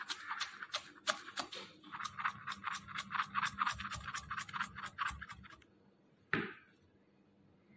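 Chef's knife rapidly chopping flat-leaf parsley on a wooden cutting board, about four or five quick chops a second, stopping a little under six seconds in. A single brief sound sweeping downward in pitch follows about half a second later.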